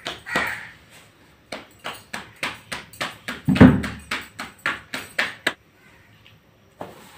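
Hands slapping a radish-stuffed paratha back and forth between the palms to flatten it, about three to four slaps a second, with one louder, deeper thud about three and a half seconds in. The slapping stops about five and a half seconds in.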